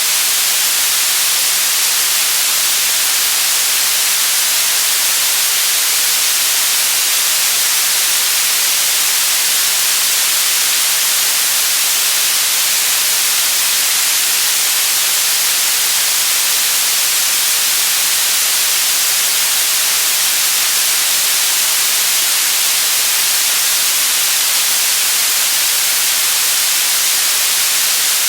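Steady, loud white noise, an even hiss that does not change.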